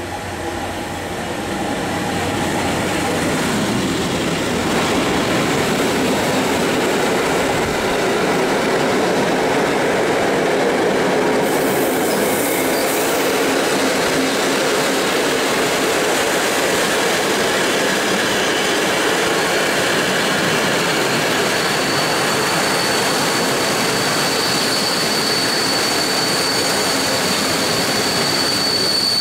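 PKP Intercity passenger train hauled by an EU07 electric locomotive running into the station: the locomotive passes and a long line of coaches rolls by with a steady rumble and rattle of wheels on rail. From about two-thirds of the way through, a high, steady squeal of the brakes builds as the train slows.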